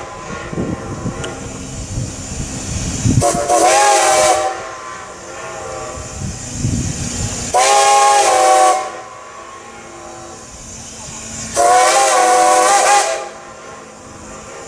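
Strasburg Rail Road No. 90, a 2-10-0 steam locomotive, sounds its chime steam whistle in three blasts of about a second and a half each, evenly spaced about four seconds apart. Under the first two blasts comes the low chuffing of its exhaust as it works hard.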